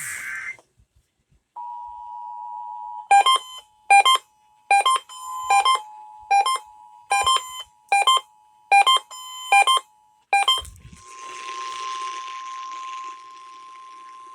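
Emergency Alert System attention tones. A steady two-tone signal starts about a second and a half in, with about ten sharp beeps a little under a second apart over it. Near the end the beeps stop with a thump, and a single steady tone over radio hiss takes over, like a weather radio's warning tone.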